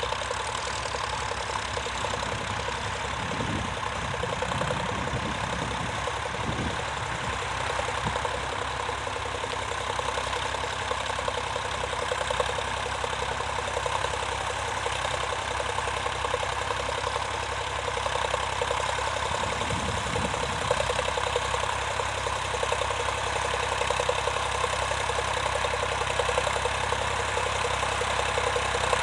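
Vintage tractor engine running steadily, growing a little louder in the second half.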